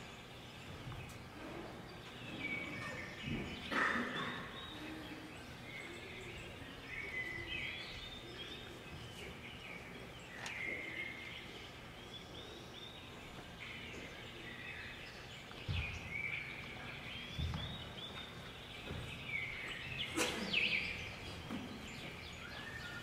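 Dancers' bare feet thudding on a wooden floor, with a few sharp knocks, the loudest about four seconds in and near the end, over steady room hiss and a run of high chirping sounds.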